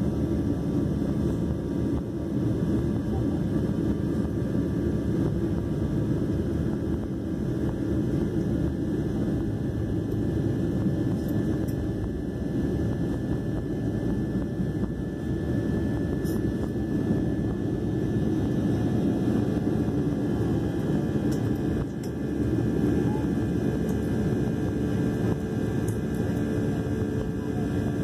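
Boeing 737 jet engines at takeoff power, heard from inside the cabin as a steady, loud low rumble of engine and rushing air, with faint steady whine tones above it.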